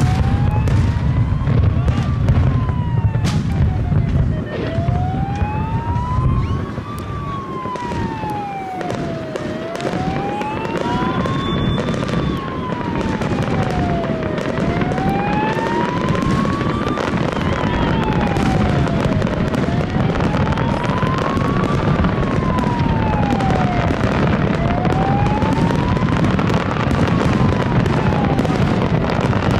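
Fireworks display: heavy booms of aerial shells in the first few seconds, then dense crackling and popping that builds toward the end. Through it a siren wails steadily up and down, one rise and fall about every five seconds.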